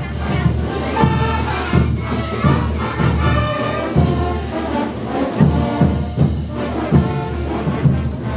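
Brass band playing, with held brass notes over a steady drum beat about twice a second.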